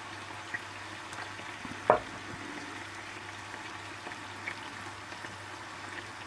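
Minced beef with onions and tomato paste sizzling steadily in a frying pan over lowered heat, with small crackles and one sharp click about two seconds in.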